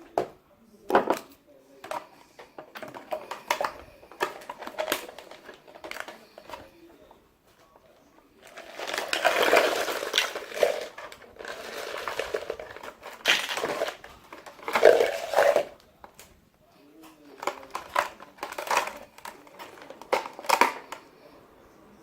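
Ice cubes, blue ice and gel ice packs being loaded into a cut-open 2-litre plastic soda bottle: irregular knocks and clatter of ice against plastic, with a longer continuous stretch of rattling and rustling about nine to twelve seconds in.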